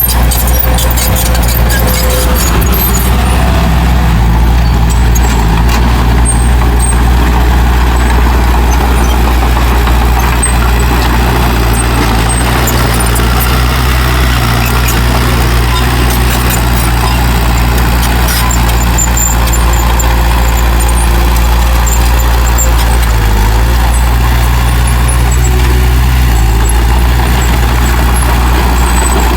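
Heavy earthmoving machine's diesel engine running loudly and steadily, with a brief change in engine speed about three-quarters of the way through.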